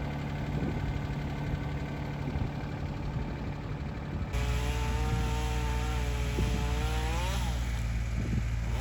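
Engines of tree-removal machinery running steadily; about four seconds in the sound changes abruptly, and a second engine comes in whose pitch wavers and then rises sharply near the end, as when it is revved.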